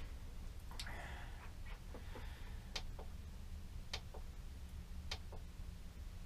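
Button clicks on a handheld battery tester as its keys are pressed to step through the test menu. The presses come every one to two seconds, each a sharp click followed by a softer one, with a brief rustle about a second in.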